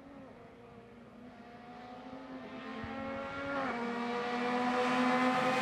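Engine of a racing side-by-side (UTV) running on track, growing steadily louder as it approaches. Its pitch dips briefly about three and a half seconds in, then holds steady.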